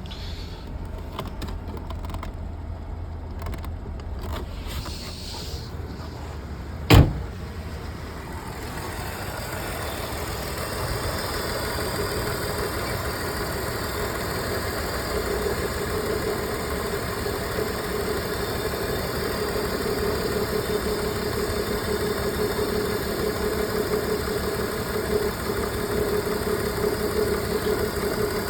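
BMW E46 engine running at idle with a misfire, its check-engine light on; the running sound grows louder and steadier after about eight seconds. One sharp thump about seven seconds in.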